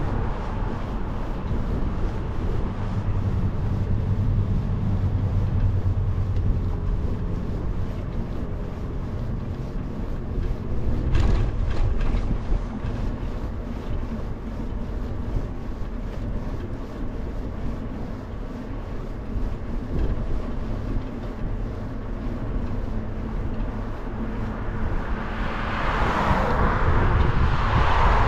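Steady low wind and road rumble on the microphone of a camera riding along a bike lane, with one sharp knock partway through. Near the end a car approaches and passes close by, growing louder.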